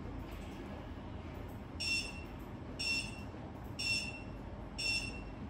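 Chkosda CH3393 LED countdown clock beeping four times, one short high-pitched beep a second, starting about two seconds in, as the countdown runs through its final seconds.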